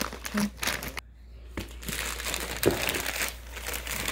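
Silver plastic shipping mailer being crinkled and torn open by hand: a run of rustling, crackling plastic with a short lull about a second in.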